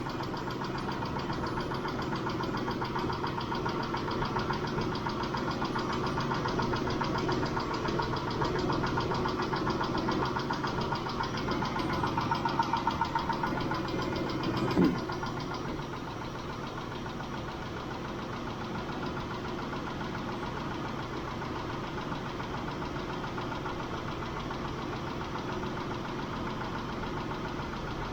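Mitsubishi 6G72 V6 engine idling while it warms up, with a fast, even ticking from the hydraulic lifters. The owner thinks it may be a single worn lifter. About halfway through there is a brief sweep in pitch, and after it the engine runs a little quieter with the ticking fainter.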